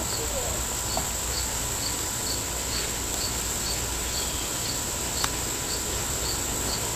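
Insects calling: a steady high-pitched drone with small regular chirps about twice a second. Two sharp clicks, about a second in and a little after five seconds, come from the sticks being woven into the basket.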